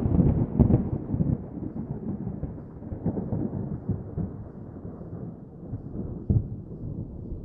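A deep rolling rumble with scattered cracks, slowly dying away as it grows duller. One louder crack comes near the end.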